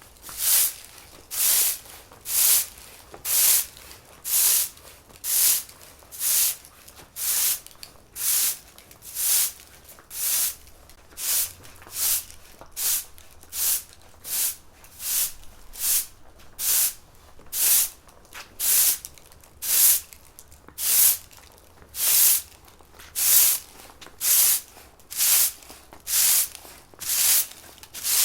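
Broom sweeping a floor in steady, even strokes, about one swish a second, each a short bright hiss.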